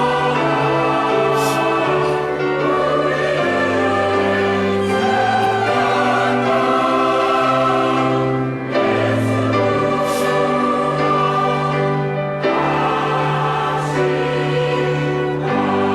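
Church choir singing an anthem in sustained chords that move every second or two, with two brief breaks for breath partway through.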